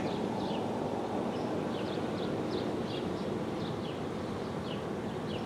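Steady outdoor background rumble with faint, short, high bird chirps repeating every half second or so.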